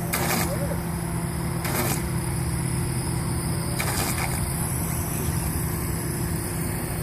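A motor running steadily with a constant hum, broken by three brief sharp noises.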